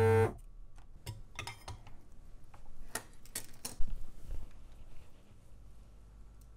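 A desoldering tool's suction pump buzzes and cuts off just after the start. Then come light clicks and metallic taps of tweezers and the circuit board being handled as a shorted diode is lifted off, the sharpest about four seconds in.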